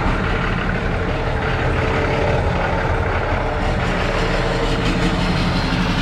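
Big-rig truck's 500 hp Cummins diesel engine running steadily at idle, a constant deep hum with a faint higher steady tone over it.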